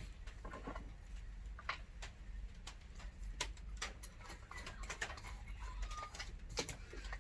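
Light, irregular clicks and taps of a plywood workpiece and hand tools being handled at a bench vise, with no power tool running.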